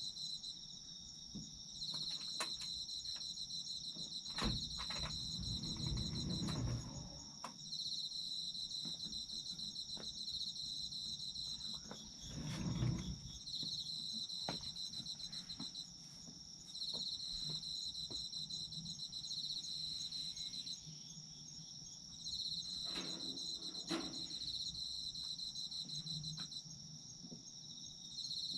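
Autumn insects calling: one keeps up a steady high trill while another chirps in rapid pulses, in phrases of about two seconds separated by short pauses. A few soft low thuds come through in between.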